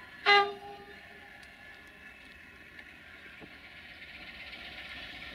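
One short horn toot, about a third of a second long, from a railway locomotive or railcar, over the steady sound of a diesel engine running, which grows a little louder near the end.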